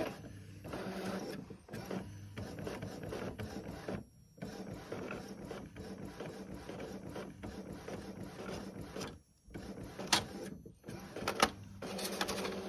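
Epson ET-2720 inkjet printer running as it prints a nozzle check page: the print-head carriage and paper feed work in stretches, with a few short pauses and some sharp clicks near the end.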